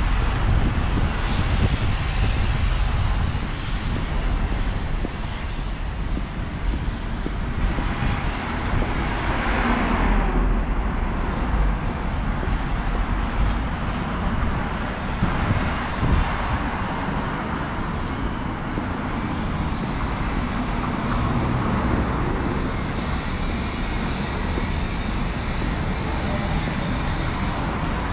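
Street traffic: cars running along the road alongside in a steady wash of noise, with one vehicle swelling louder as it passes about ten seconds in.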